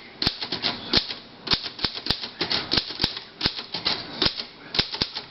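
A 1949 Royal KMG manual desktop typewriter being typed on: sharp keystroke clacks at an uneven pace of about four a second.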